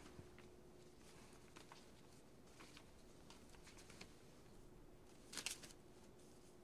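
Faint rustling of paper pages in a book being handled and turned, with one louder page turn about five and a half seconds in, over a faint steady hum.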